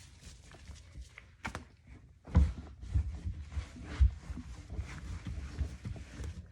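Irregular dull knocks and rubbing on wooden kitchen cabinets, as they are wiped and scrubbed clean, starting about two seconds in.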